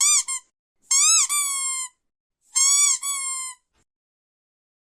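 Rubber squeaky duck toy squeaking: a quick double squeak at the start, then two longer squeaks about one and two and a half seconds in. Each of the longer squeaks is a short rise and fall followed by a held, slightly falling squeak.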